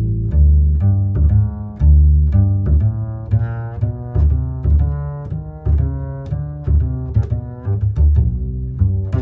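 Background instrumental music: a low melody of short notes changing about every half second, over a light tick about twice a second.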